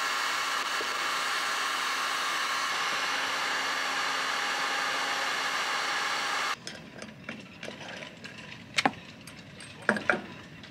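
Electric heat gun running, a steady fan hiss with a faint whine, heating a seized stainless-steel rigging turnbuckle to free its thread. It cuts off abruptly about six and a half seconds in. A few sharp metallic clicks and knocks follow as the turnbuckle is worked by hand.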